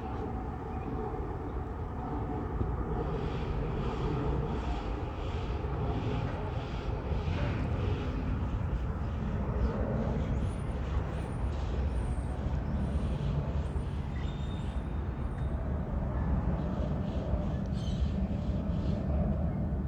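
Rolls-Royce Trent XWB engines of an Airbus A350-900 climbing away after takeoff: a steady low rumble.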